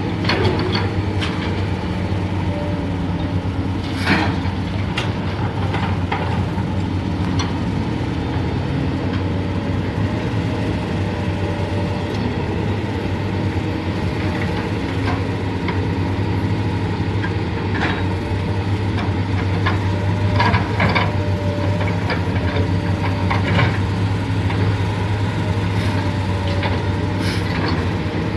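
Excavator's diesel engine running steadily under work, with scattered metallic clanks and knocks from the machine.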